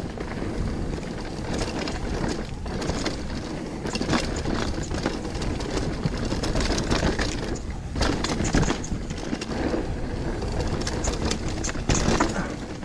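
Mountain bike riding down a dirt trail: a steady rush of tyre and wind noise, broken by frequent short rattles and knocks from the bike over bumps and roots.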